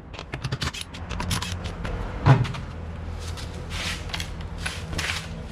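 Tools clicking and knocking during work on a car's rear suspension, with one loud knock a little over two seconds in, over a steady low hum.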